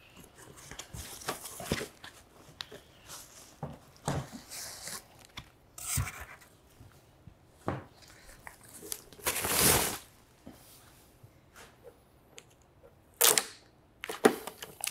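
Packaging handling: a string of short rustles and scrapes as a projector is lifted out of its foam and plastic bag, the longest and loudest about two-thirds through, then protective tape crackling as it is peeled off the projector's top near the end.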